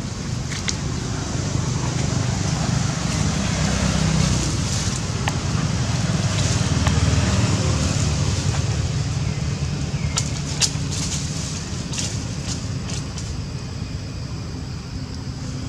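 Steady low rumble of outdoor background noise that swells and eases over several seconds, with a few sharp clicks in the second half.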